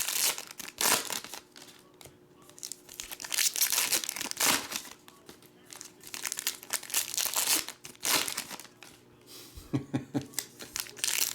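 Trading-card pack wrappers crinkling and being torn open by hand, in irregular bursts.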